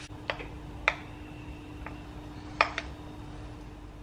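A spoon tapping and clicking against kitchenware, about five sharp taps over two and a half seconds, the loudest near the end. This is the sound of knocking a scoop of peanut butter off the spoon. A steady low hum runs underneath.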